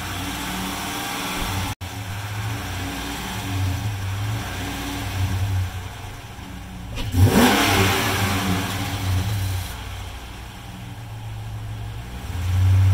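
5.7L Hemi V8 idling and being revved in several short blips, the strongest about halfway through, then held higher near the end. The owner hears a ticking that gets louder with revs and fears valvetrain trouble after an earlier lifter failure.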